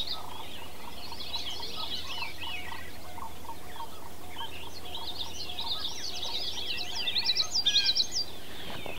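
Songbirds singing: two long runs of rapid, high chirping song, the second one loudest near the end, with a lower note repeating steadily underneath.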